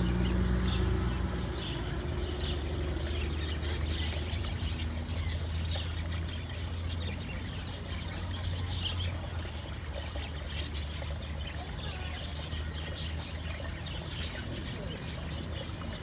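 Stream water running and trickling over rocks, with scattered short bird chirps. A low steady hum underneath fades out about halfway through.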